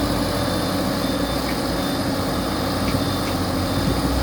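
Kobelco excavator's diesel engine running at a steady speed.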